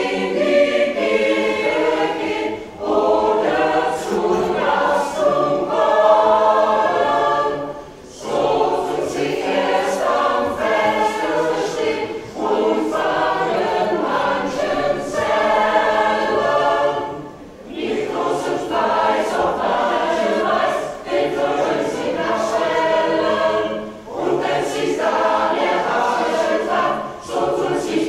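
Mixed choir of men and women singing together, in long phrases broken by short gaps.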